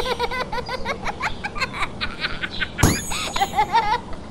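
Animated Talking Tom cartoon cats laughing and chattering in squeaky, high voices over light music, with a sharp hit at the start and another about three seconds in.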